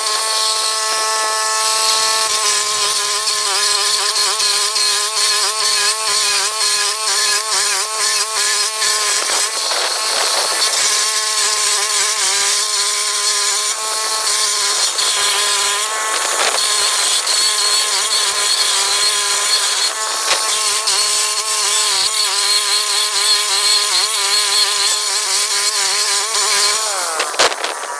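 Walk-behind stump grinder's small gas engine running at high speed as its cutter wheel grinds into a tree stump, with a crackle of wood chips. The engine note wavers and sags briefly several times.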